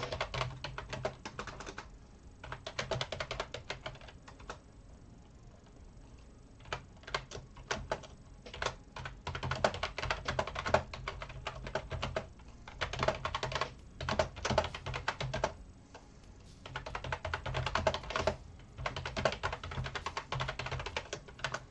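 Small plastic Lego pieces clicking and clattering in quick runs of a second or two, with short pauses between, as hands sort through and handle the bricks.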